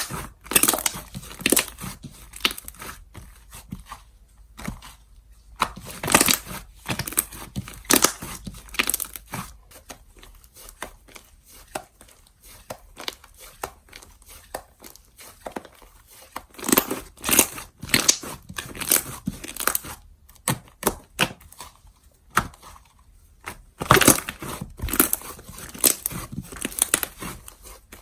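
Hands stretching, pressing and pulling apart slime, giving irregular runs of crackly clicking and popping with quieter stretches between; the loudest runs come about six to nine seconds in, around seventeen to nineteen seconds in, and near the end.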